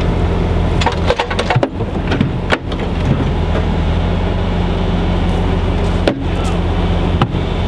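An engine running steadily at an even speed, with scattered sharp clicks and knocks over it, thickest in the first few seconds.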